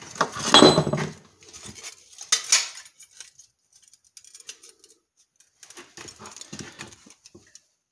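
Sheet-metal clinks and rattles as a small hand-formed patch panel is handled at a bench vise and taken out of it: a loud clattering rattle about half a second in, a shorter one a little after two seconds, then scattered faint taps.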